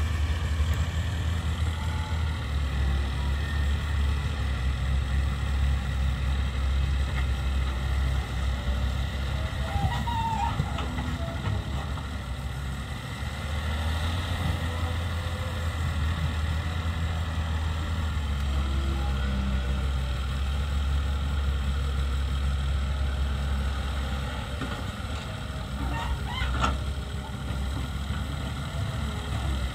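Diesel engines of a wheeled excavator loading soil into a trolley and of a Massey Ferguson 240 tractor standing by, running in a steady low drone that eases off and picks up again as the excavator works. A couple of faint knocks come about ten seconds in and again near the end.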